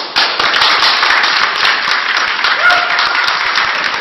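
Audience clapping: applause breaks out suddenly and goes on steadily, greeting a winner's name being announced.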